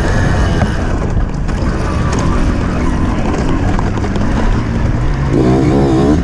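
Off-road motorcycle engine running under load, revving up with a rising pitch about five seconds in.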